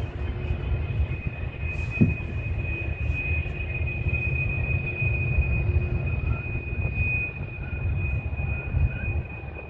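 Steel freight-car wheels squealing in one steady high tone as a long BNSF manifest freight train rounds the curving mountain track, over a low rumble. A single brief knock about two seconds in.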